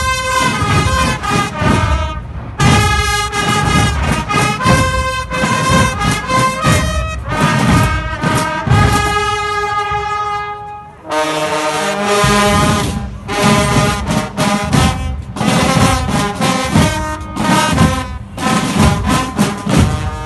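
Carnival street band (Katzenmusik / Guggenmusik) playing loud brass (trombones and trumpets) over pounding drums. There is a short break about halfway through, then the band strikes up again.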